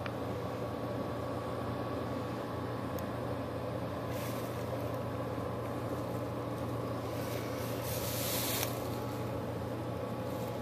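Steady low hum of running machinery with a few constant tones. A burst of hiss comes about four seconds in, and a longer, louder hiss comes around eight seconds in.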